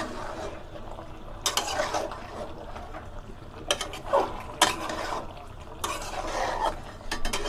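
A metal spatula stirs ghee into a thick jackfruit and shrimp curry in an aluminium pot, in a series of scraping strokes against the pot.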